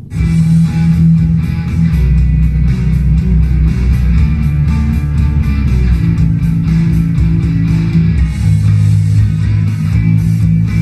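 Guitar-driven music with a heavy bass line, played back through a soundbar from a Bluetooth source. It comes in again after a momentary gap at the very start.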